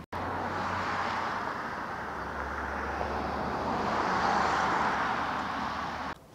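Road traffic noise: a motor vehicle's tyres and engine running close by, swelling slightly about four seconds in, then cutting off suddenly near the end.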